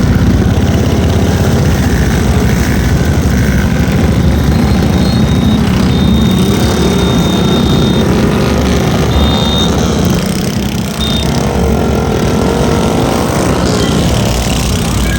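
Motor vehicle engine running steadily with a dense low rumble, and a thin high tone coming and going several times in the middle.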